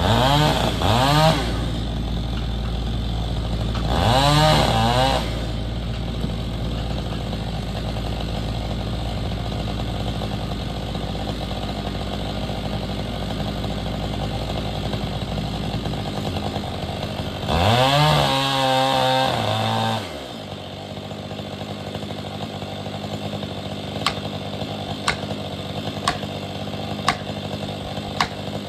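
Stihl MS 500i fuel-injected two-stroke chainsaw idling and being revved up three times, briefly twice near the start and a longer rev of about two seconds in the middle. A few sharp knocks sound near the end over the steady idle.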